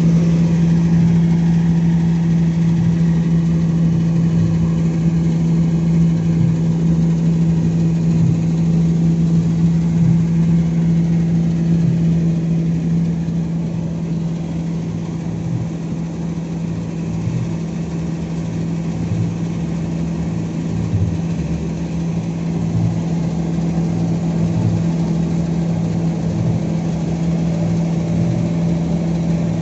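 Generator set in a soundproof canopy running at a steady speed: a constant engine hum that holds one pitch throughout, a little quieter around the middle.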